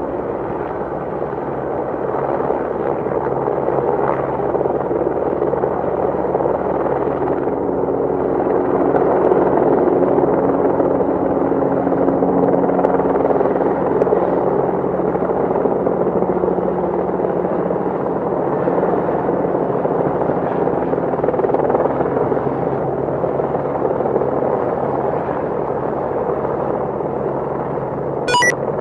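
Steady engine drone of a moving vehicle or aircraft, swelling a little partway through, with one sharp click near the end.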